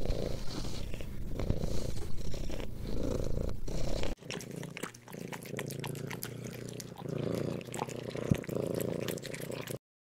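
Domestic cats purring. A steady rumbling purr swells and eases with each breath, then about four seconds in a second, quieter purring cat follows, with a few light clicks, and the sound stops suddenly near the end.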